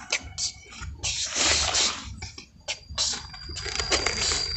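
A plastic toy excavator's bucket, pushed by hand, scraping and scooping loose sand in irregular rustling bursts. A thin, steady high whine starts about three seconds in.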